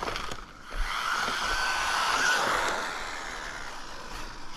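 MJX Hyper Go 1/14-scale RC rally car running on a 2S lipo, its electric motor whining over the rush of tyres on the road. The whine builds from about a second in and is loudest a little past the middle, then eases off.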